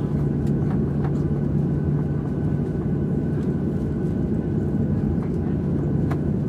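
Cabin noise inside a Boeing 737-700 taxiing slowly on the apron, its CFM56 engines at idle: a steady hum with a steady low tone in it, and a few faint clicks.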